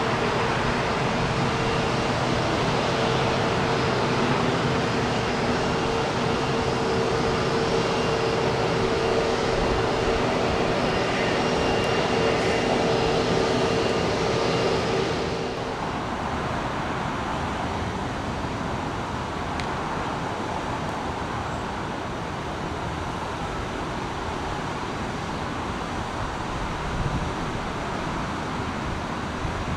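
Jet airliner engines running with a steady whine over a rushing roar, cutting off abruptly about halfway through to a quieter, even rush of more distant aircraft noise.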